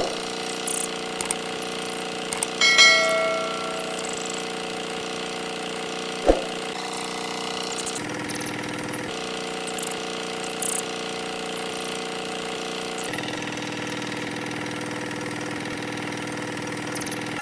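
Small electric motor of a miniature DIY toy tractor running with a steady hum. A bell-like ding rings out about three seconds in, and a sharp click comes about six seconds in.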